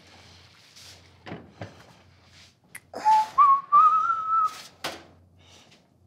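A person whistling a short phrase of a few notes that step upward in pitch, lasting about a second and a half, after a few light knocks of kitchen clatter.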